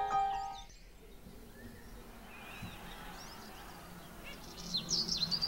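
Background music fades out within the first second. Then birds chirp: a few faint chirps about halfway through, and a quick burst of loud chirping near the end.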